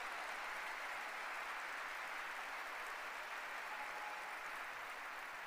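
Audience applauding: steady, even clapping that starts to fade near the end.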